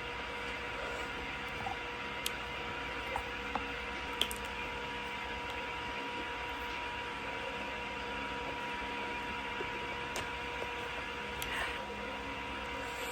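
Steady electrical hum and hiss of room noise, with a few faint, scattered light clicks.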